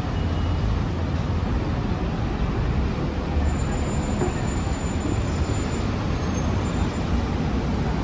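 Street traffic noise: a steady rumble of road vehicles, with a faint thin high-pitched tone for about two seconds midway.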